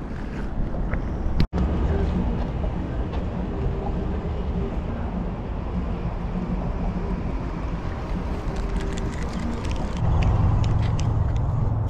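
Steady low outdoor rumble of distant road traffic. It drops out for an instant about a second and a half in and gets louder about ten seconds in.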